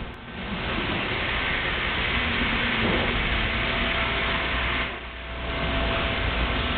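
Steady noise of factory-floor machinery running, with a faint steady hum, dipping briefly in level twice.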